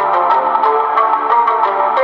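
Music with a quick plucked, guitar-like melody, played from a phone through a DIY LM3886 amplifier into a woofer as a playback test.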